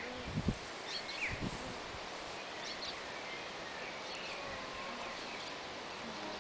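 Quiet outdoor ambience with small birds chirping faintly in the background and a couple of soft low thumps in the first two seconds.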